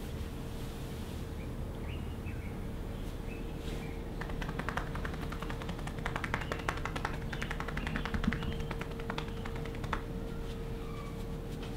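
Rapid light tapping of a masseuse's hands on a customer's back, a quick run of pats from about four seconds in to about ten, over a steady low hum. A few faint chirps come and go.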